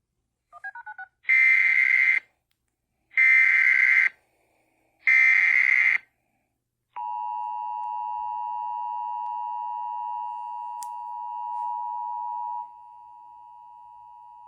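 Emergency Alert System alert tones: three loud, buzzy SAME header data bursts, about a second each with a second between them, after a few faint short beeps. About seven seconds in, the steady two-tone attention signal starts and drops in level near the end.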